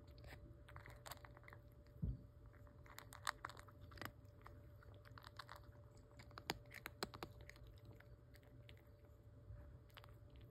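Domestic cat crunching dry kibble from a stainless steel bowl: a quick, irregular run of small crunches and clicks. A dull thump comes about two seconds in.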